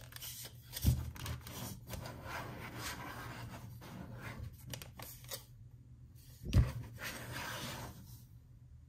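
Large plastic action figure being handled and posed by hand: its limbs and body rubbing and scraping with small clicks, and two louder knocks, about a second in and again about six and a half seconds in.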